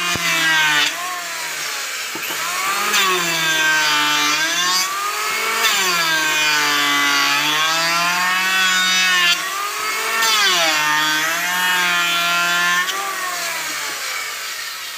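Moritsu 450-watt electric hand planer running and shaving a wooden plank. A high motor whine sags in pitch each time the blades bite into the wood and recovers as the cut eases, over several passes. It fades off near the end.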